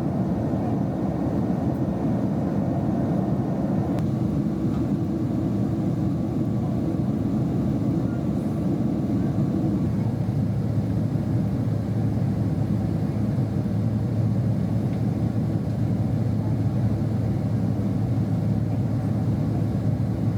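Cabin noise inside a Boeing 767-300 airliner on descent: the steady low rumble of its jet engines and airflow. About ten seconds in, a low hum in it grows stronger.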